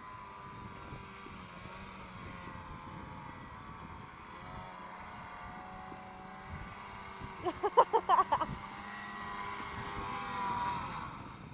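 Distant two-stroke snowmobile engines running at speed, including a Ski-Doo Mach Z 1000 SDI, swelling and rising in pitch a little before the end as the sleds come nearer. About eight seconds in there is a short, loud burst of close sound, much louder than the engines.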